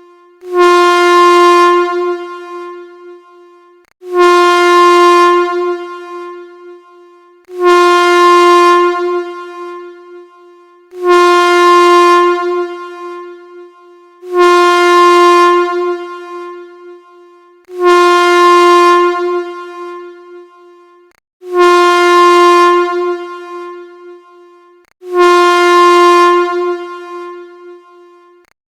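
Air horn blowing one steady note in eight short blasts about three and a half seconds apart, each starting loud and dying away over a few seconds.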